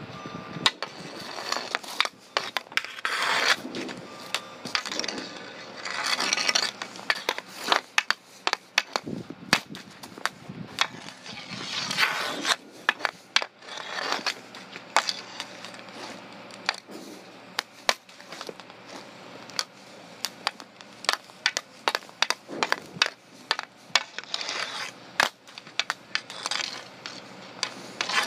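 Hockey stick blade scraping along asphalt and clacking against a street hockey ball. There are many short, sharp clacks, with a few longer scrapes of about a second.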